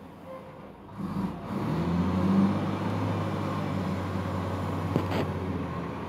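A truck engine comes up about a second in and keeps running steadily at a low pitch, with one sharp click near the end.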